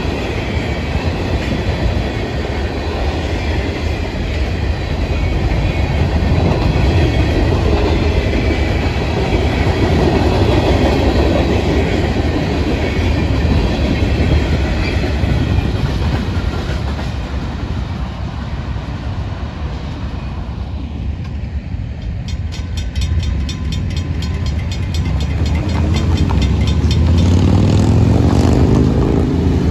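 Florida East Coast freight train's tank cars and covered hoppers rolling past a grade crossing, wheels clattering over the rails, the rumble fading as the last car goes by. About two-thirds of the way in, the crossing bell starts ringing rapidly, and near the end waiting road vehicles, motorcycles among them, rev up with rising engine pitch.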